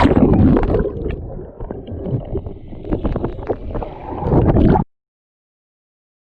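Loud, buffeting wind and water noise on the microphone during a ride on the lake, with surging splashes, cutting off abruptly about five seconds in.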